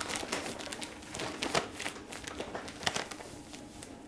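Large paper flour sack crinkling and rustling as flour pours from it into a plastic tub, with a few sharper crackles from the paper.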